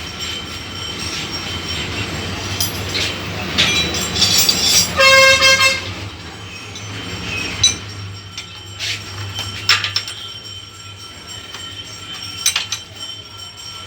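A horn sounds once, a short single-pitched blast about five seconds in, over a steady low hum. A few sharp metallic clicks follow later.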